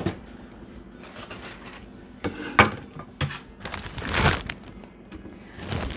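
Plastic tortilla bag crinkling and rustling as it is handled, with a few sharp clicks and taps; the loudest rustle comes about four seconds in.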